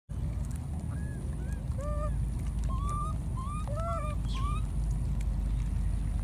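Baby monkeys giving a series of short, squeaky rising-and-falling calls, about a dozen in the first four and a half seconds, over a steady low rumble.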